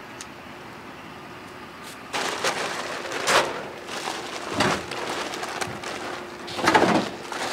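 Forty-pound bags of shelled corn being pulled and shifted at a pickup's tailgate: the bags rustle and the grain shifts inside them. It starts about two seconds in, with three louder surges.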